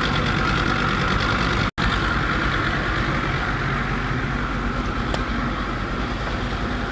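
A small boat's outboard motor running steadily. The sound drops out for an instant a little under two seconds in.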